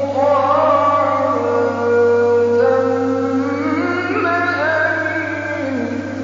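A male reciter chanting the Quran in the melodic tajwid style, holding long drawn-out notes that slide up and down in pitch, over a steady low hum.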